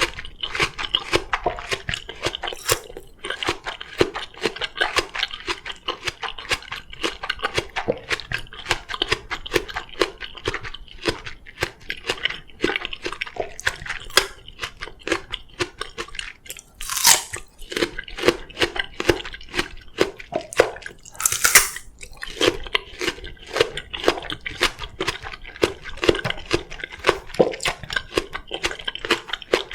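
Close-up chewing of crisp oriental melon (chamoe): rapid wet crunching, with two louder, sharper crunches about halfway through.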